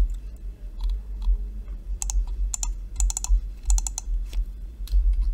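Typing on a computer keyboard: a few scattered keystrokes, then quick runs of keys between about two and four seconds in, over a steady low hum.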